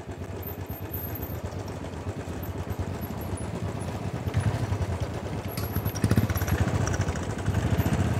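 Several Royal Enfield Bullet 500 single-cylinder motorcycles running at low speed on a dirt track, their engines getting louder about halfway through as they pass close.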